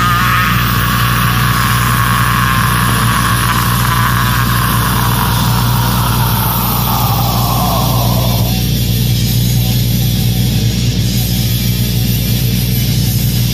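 A long death metal vocal scream, held and sliding slowly down in pitch, that breaks off about two-thirds of the way through. Under it a heavily distorted low guitar chord drones steadily.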